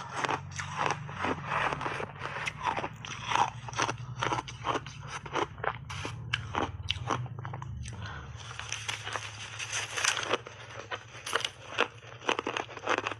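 Close-up crunching and chewing of shaved ice coated in milk powder, with sharp crunches several times a second. In the last third the crunching turns denser and continuous.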